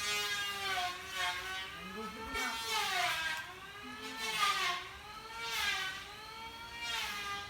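A motor whining steadily, its pitch sliding up and down as it swells louder and softer about every second and a half.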